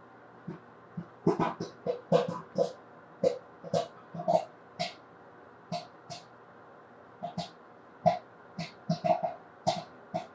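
Popcorn kernels popping in a plate-covered bowl inside a running microwave oven: irregular sharp pops, sometimes several close together and sometimes a second or two apart, over the microwave's steady hum.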